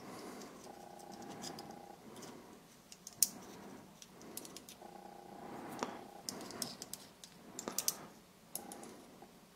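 Small metal parts of the ISSC MK22 trigger group and a coil spring being handled and fitted together by hand: scattered light clicks and ticks, a few sharper. A faint low hum comes and goes between them.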